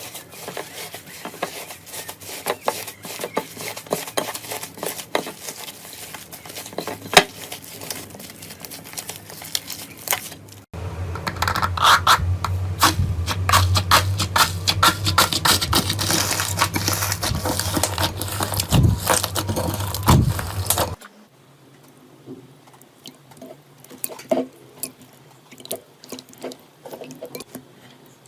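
Slime being squeezed and kneaded by hand, giving dense sticky clicks and crackles. The sound changes abruptly twice, about a third and three quarters of the way through, as separate clips follow one another; the middle one is the loudest, with a low hum under it.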